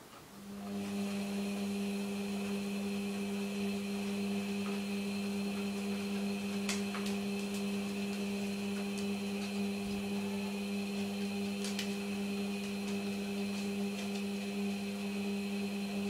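Beko front-loading washing machine's drum motor running during a 60 °C wash: a steady hum with a higher whine that starts just after the beginning and stops abruptly near the end, with a few faint clicks from the tumbling load.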